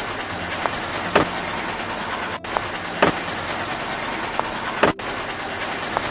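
Construction-vehicle engine sound effect running steadily, with a sharp clank about every two seconds and brief dropouts where the loop restarts.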